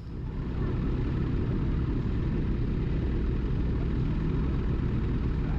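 Snowmobile engine starting up and settling into a steady idle.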